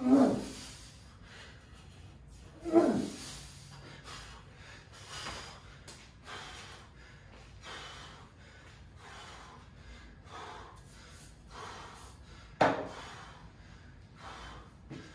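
Heavy, rapid breathing of a man winded from repeated bar and ring muscle ups, about a breath a second. Loud gasping exhales come at the start, about three seconds in, and again a couple of seconds before the end.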